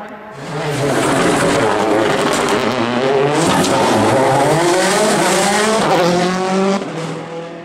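A rally car passes at full speed, its engine note rising and falling through the gears with loud tyre noise. It gets loud about half a second in and drops away near the end.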